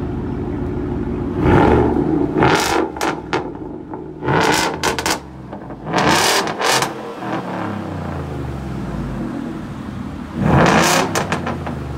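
Ford F-150 with a Borla aftermarket exhaust kit, idling and revved in several short blips of the throttle. Each rev rises quickly and falls back to idle.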